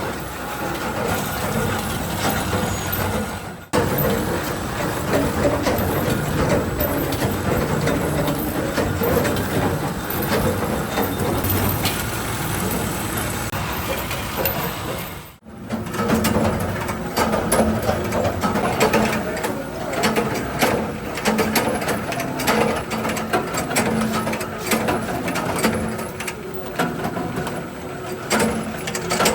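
Workshop machinery running, a dense mechanical noise full of rapid clicks and knocks over a low hum, cut off abruptly twice.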